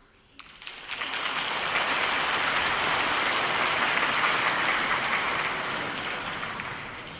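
Audience applause in a concert hall, swelling in about a second, holding, then dying away over the last few seconds.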